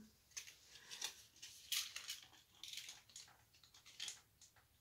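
Faint, scattered clicks and rustles from stretch bracelets being handled.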